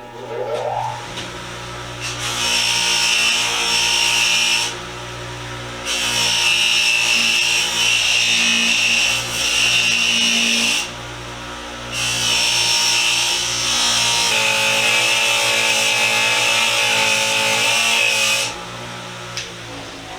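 Electric power tool spinning up, then running steadily while buffing steel vise parts, with three long spells of loud, hissy scrubbing as the work is pressed against it. The motor's pitch shifts about two-thirds of the way through.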